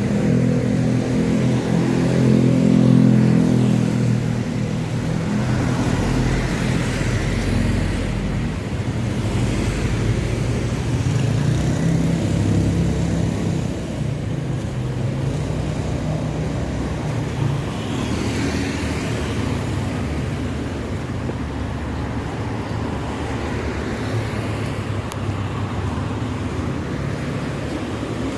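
Street traffic: motor vehicle engines running and passing, with the loudest engine close by about three seconds in, then a steadier hum of traffic with vehicles going by.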